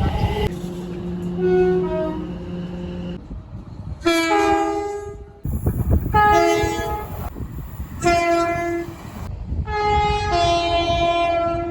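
Train horns sounding a series of loud two-tone blasts, each about one to two seconds long, with the low rumble of the train running beneath.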